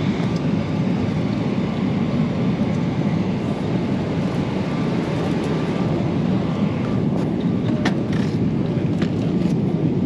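Steady low drone of a jet airliner's cabin in flight, with a few light clicks between about seven and nine and a half seconds in.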